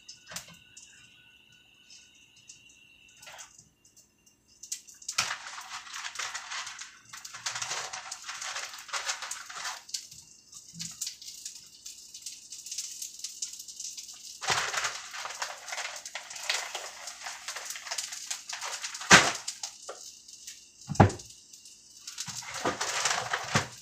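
Precooked bacon strips sizzling and crackling in a dry frying pan, the sizzle starting about five seconds in and coming in spells. A couple of sharp knocks sound near the end.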